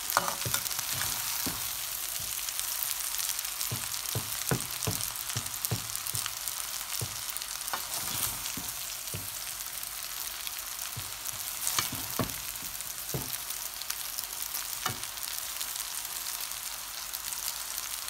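Noodles and vegetables sizzling in oil in a steel pan while being stirred, with a utensil scraping and knocking against the pan. The knocks come thick in the first few seconds and grow sparser later on.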